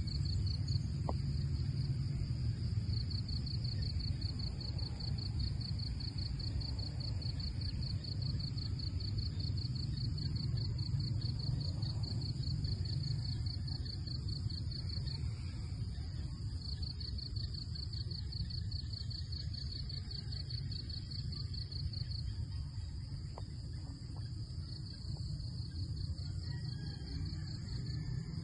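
Insects, crickets or cicadas, trilling steadily in the forest: a high, rapidly pulsing trill that drops out briefly a few times, over a low, steady rumble.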